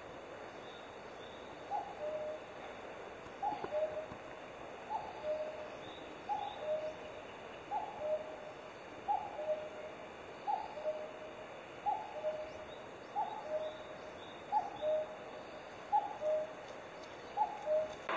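A bird calling a two-note hooting call, a short higher note dropping to a longer lower one, repeated steadily about every second and a half, with faint chirps of smaller birds behind it.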